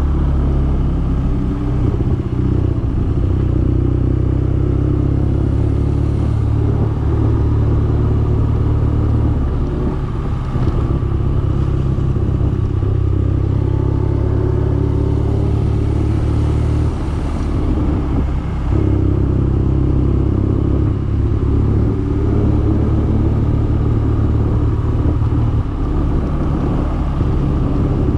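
BMW R nineT's 1170 cc boxer-twin engine running steadily while riding, its note changing twice as the revs shift.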